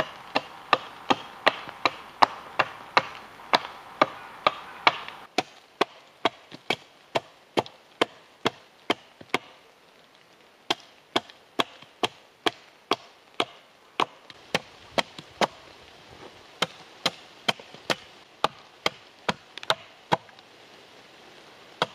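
Hatchet chopping repeatedly into the side of a fresh-cut log, quick even blows about two to three a second, carving the log into a taper. The first few seconds of blows are the loudest, and there is a pause of about a second near the middle.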